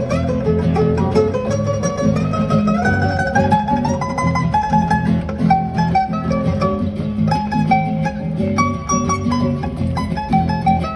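Two acoustic guitars playing together: a plucked melody line over lower accompanying chords.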